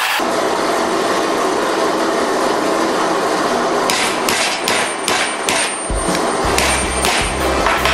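Hand hammer tapping a steel pipe fitting on a wooden block: a run of quick metallic taps begins about halfway through, about a dozen strikes in two bursts with a short pause between, each leaving a faint high ring.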